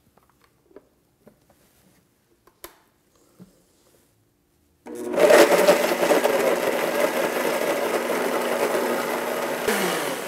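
A few faint knocks, then an electric kitchen blender switches on about five seconds in and runs steadily, pureeing walnuts, banana and lemon juice into a thick cream. Near the end it drops in level as it winds down.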